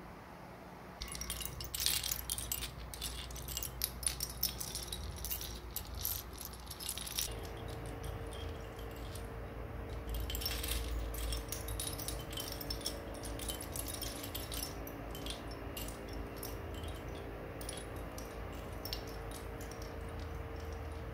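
Wind chime tinkling in irregular clusters of light strikes over a low rumble. About seven seconds in, a steady hum with a few held tones joins underneath.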